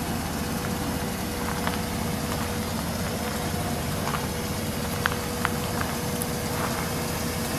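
A motor running steadily with a low rumble and a faint steady hum, with a few light clicks and taps over it.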